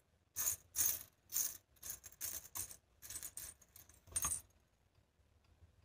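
Loose jingle shells clinking and rattling against each other as a hand rummages through a pile of them on a tabletop. The clinks come in a quick, uneven run of short bursts that stops a little past four seconds in.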